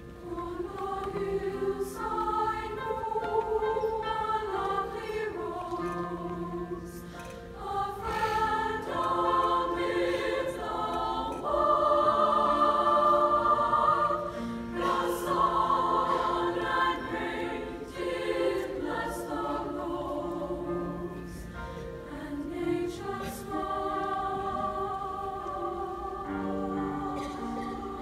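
Women's choir singing held notes in several-part harmony, swelling loudest around the middle.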